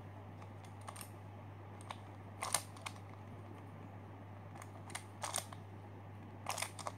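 ShengShou spring-tensioned skewb puzzle being turned by hand: irregular sharp plastic clicks as its pieces rotate, singly and in small clusters. A steady low hum runs underneath.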